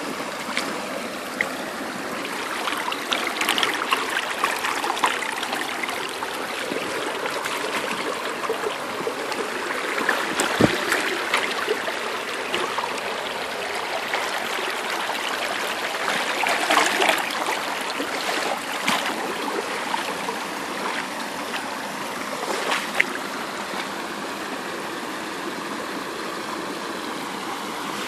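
Shallow creek water running over a gravel bed in a steady babble, with a few louder splashes now and then.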